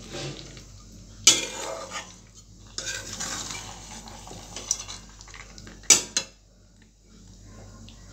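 Metal spatula scraping and knocking against a metal karai while stirring thick chicken kosha, with two sharp clanks, one about a second in and a louder one near six seconds.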